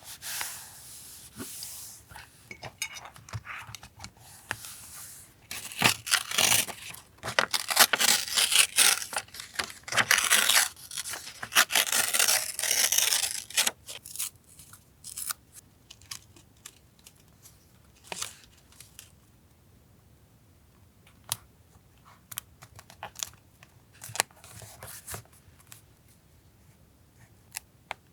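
Paper being torn and handled for collage journaling: a busy run of tearing and rustling, loudest in the middle of the first half, then only scattered light taps and short rustles.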